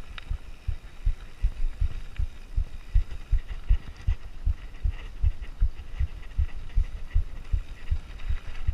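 Mountain bike on a downhill trail, heard from the rider's camera: a steady run of dull low thumps, about three to four a second, with faint clicking and rattling above them.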